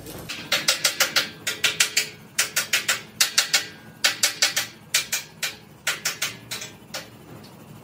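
A small hammer striking a welded steel air-compressor tank in quick runs of sharp metallic taps, about four or five a second, the steel ringing faintly between blows.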